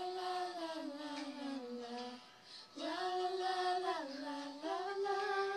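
Girls singing together without accompaniment, in long held notes that step and glide slowly, in two phrases with a short break a little past two seconds in.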